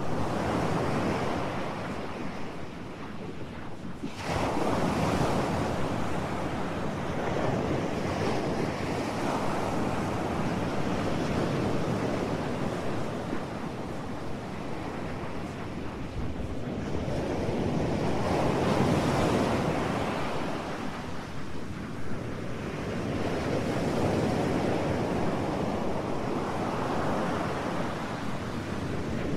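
Ocean surf sound: a steady rushing noise that swells and fades every few seconds like breaking waves.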